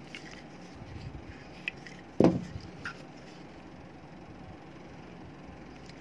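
Pliers forcing apart the plastic casing of a phone charger: a few small clicks and scrapes, and one sharp crack a little over two seconds in.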